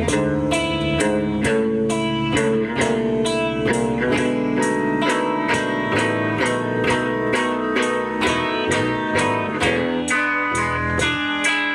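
Blues guitar playing an instrumental passage: a steady run of picked notes with sustained tones between vocal lines.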